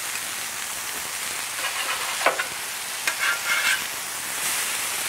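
Hash browns and smash burgers sizzling steadily on a Blackstone flat-top griddle. Metal spatulas scrape and clink on the steel surface a few times in the middle as the potatoes are turned.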